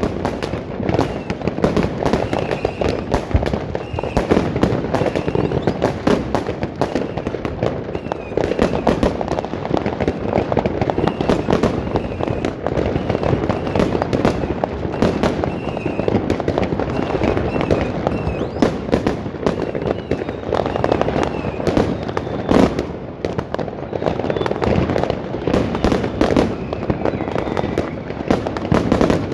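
Dense consumer fireworks and firecrackers going off without pause: many rapid bangs and crackles overlapping one another.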